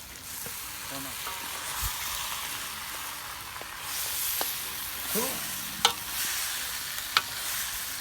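Mutton frying with spice masala in a pot, sizzling steadily while being stirred, with two sharp clicks about six and seven seconds in.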